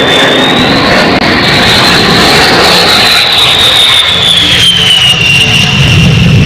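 Fighter jet engine sound: a loud, steady jet roar with a high whine that rises and then falls back.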